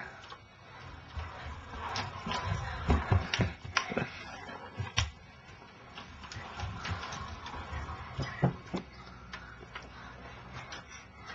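A child's kick scooter rolling over carpet, with scattered knocks, clicks and shuffling as he pushes it along.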